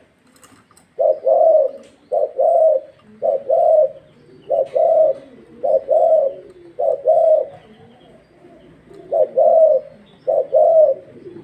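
Spotted dove (Thai 'vân rồng' cu gáy) cooing: low, repeated two-note phrases starting about a second in, with a longer pause near eight seconds before the cooing resumes.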